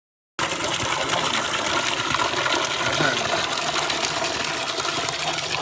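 Steady rush of running water, cutting in suddenly less than half a second in.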